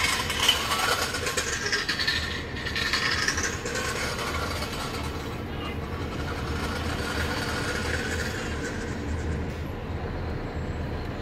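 Heavy truck heard from inside its cab, with a steady low engine rumble. Over the first three and a half seconds a high squeal glides up and down in pitch.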